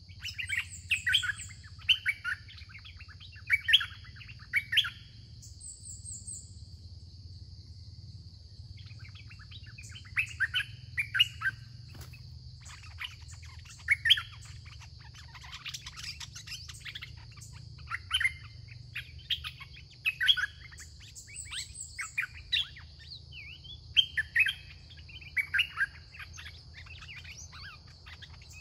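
Red-whiskered bulbuls singing short, bright, repeated phrases in bursts, with a pause of a few seconds early on: a caged decoy bulbul calling to lure wild bulbuls. A steady high hum runs underneath.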